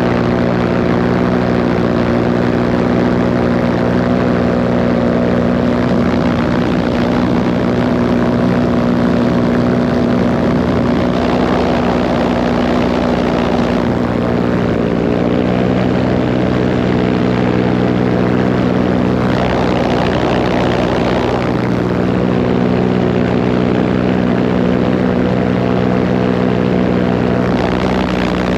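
Paramotor engine and propeller running steadily, with a rushing noise over it. The engine's pitch dips slightly about halfway through, and the rushing swells twice.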